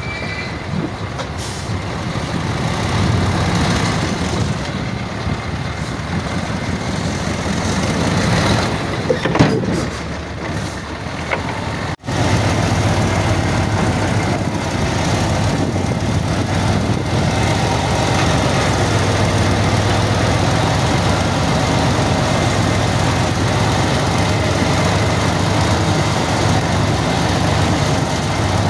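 Heavy diesel earthmoving machinery running steadily under work, with a brief cut-out about twelve seconds in, after which the engine note is steadier and a little louder.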